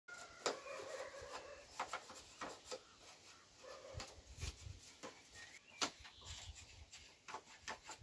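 Scattered light wooden knocks and clicks from a wooden frame being handled and set up, with faint bird chirps in the background.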